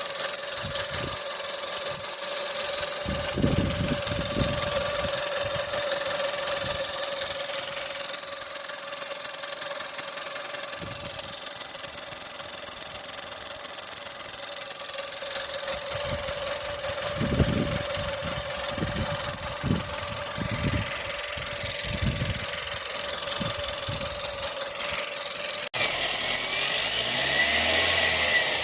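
A 1.4 TSI 122 hp four-cylinder turbocharged petrol engine running steadily, with a constant high whistle or squeal that the owner puts down to the water pump. The sound changes abruptly near the end.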